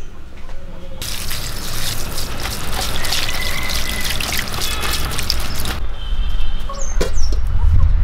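Water splashing and draining through a woven bamboo basket of broccoli florets as they are rinsed, starting about a second in and stopping about six seconds in.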